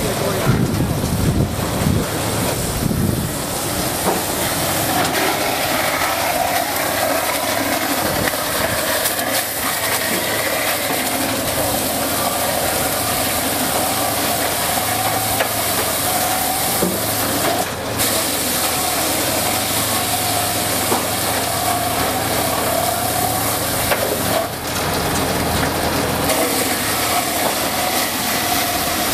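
Montana Manufacturing 2"-6" dowel mill running, driving a log through its spiked feed rollers and spinning cutter heads as it rounds the wood into a dowel: a steady, even machine noise with a low rumble that fades in the first few seconds.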